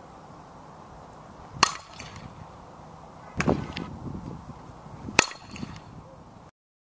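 Two sharp cracks of a softball bat striking the ball during batting practice, about three and a half seconds apart, with a duller thud between them.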